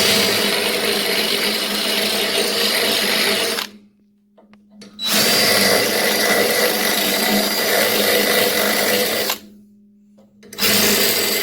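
Power drill running in three runs of about four seconds each, with short pauses between, a steady motor whine under each run, as it drives hardware in during assembly.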